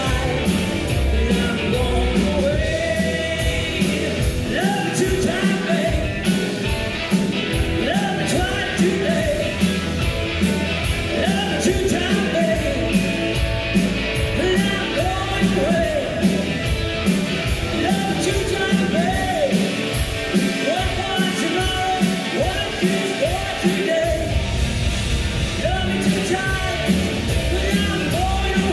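Live rock band playing a song with a woman singing lead over electric guitars and a steady drum beat.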